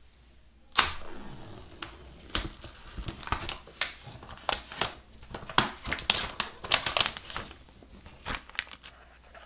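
Clear plastic wrapping film being pulled off a phone box and crinkled in the hands: a quick series of sharp crackles and rustles, the loudest about a second in, thinning out near the end.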